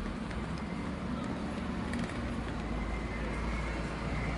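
Busy city street ambience: steady traffic noise with people's voices mixed in. A low engine rumble from a passing vehicle grows stronger about two seconds in.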